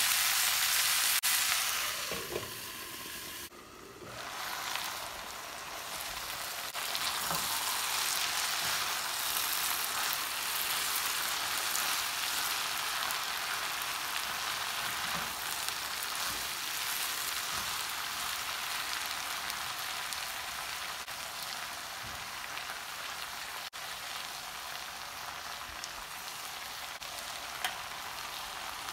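Potatoes, French beans and onions sizzling in hot oil in a nonstick pan while a silicone spatula stirs them. The sizzle drops away for a moment about three seconds in, then comes back and holds steady.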